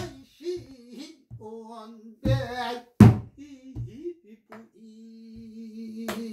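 Pansori singing: one voice sliding and bending through ornamented phrases, ending on a long held note, accompanied by a buk barrel drum struck with the palm and a stick. Several sharp drum strokes, the loudest about 3 seconds in.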